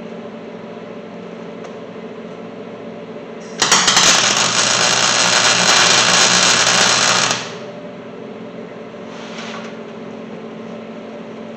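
Welder's arc crackling loudly in one continuous weld on the steel shock mount and frame, lasting about four seconds and starting a few seconds in. A steady low hum runs underneath.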